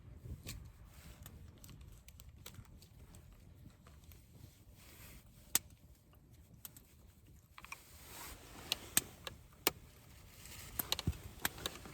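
Scattered sharp clicks and light knocks over a faint low rumble, coming more often in the second half.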